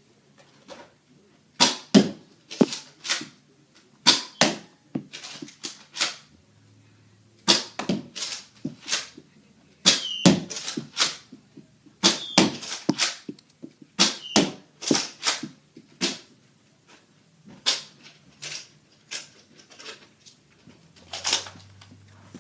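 Nerf Mega blaster being primed and fired six times with Mega darts: a run of sharp plastic clicks and clacks in clusters every second or two, with a few brief high whistles.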